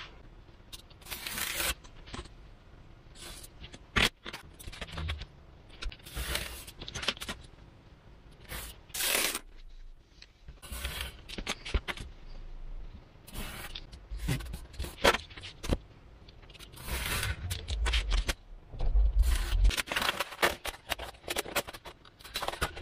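Craft knife blade drawn through a sheet of 3 mm Depron foam along a steel ruler: short scratchy cutting strokes at irregular intervals, with dull knocks as the ruler and foam sheets are moved and set down.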